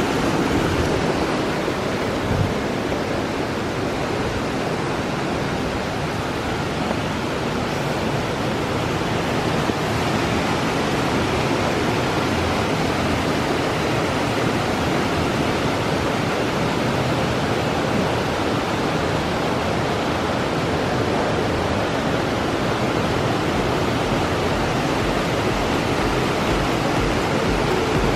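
Steady rushing of a mountain stream flowing under and around an old stone bridge, an even hiss of water running unbroken throughout.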